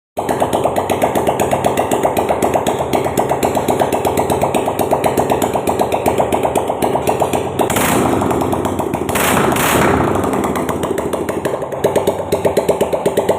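Honda TMX155's single-cylinder four-stroke engine running with a fast, even putter, revved up briefly twice around the middle before settling back.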